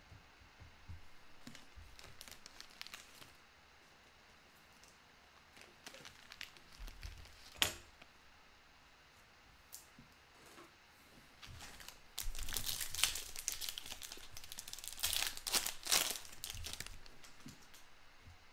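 Foil wrapper of a trading-card pack crinkling and tearing as it is ripped open, a dense run of crinkling in the second half. Before that, light clicks and one sharp click of cards being handled.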